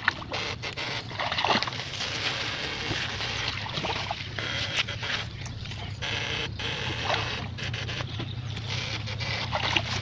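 Ditch water sloshing and splashing in irregular bursts as a wader moves through it with fish-shocker poles. Underneath runs a steady low hum, the buzz of the backpack platina-type fish shocker.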